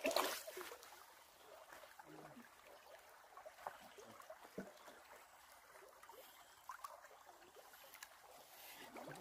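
Faint trickling water, with scattered small drips and splashes.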